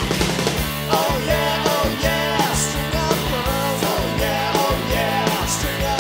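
Rock song with a sung vocal line over guitar, bass and a steady drum beat.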